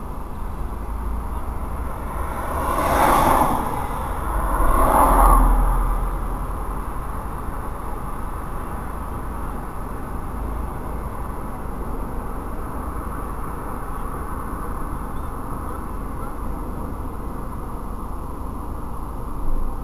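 Steady background hum with two vehicles passing close by, each swelling and fading, about three and five seconds in. A brief knock near the end.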